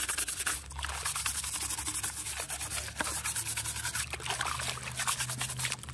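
Plastic-bristled scrub brush scrubbing a plastic toy gun in soapy water, in quick back-and-forth rubbing strokes.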